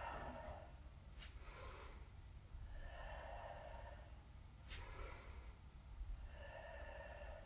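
A woman breathing audibly in and out, several slow faint breaths in time with her arm movements, with a few small clicks and a steady low hum underneath.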